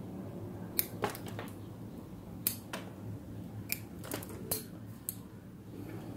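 Pruning scissors snipping rosemary shoots to shorten them: a series of about ten sharp, irregular snips.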